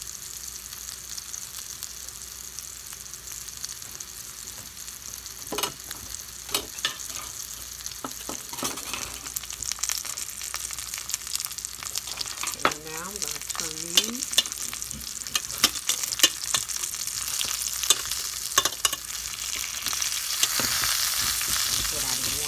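Potato wedges sizzling steadily in oil in a stainless steel skillet. From several seconds in, a metal utensil clinks and scrapes against the pan, and the sizzle grows louder near the end as the potatoes are turned with a fork.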